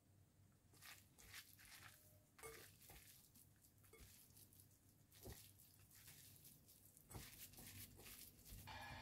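Faint, irregular squishing and rubbing of hands mixing flour into sliced raw beef in a glass bowl.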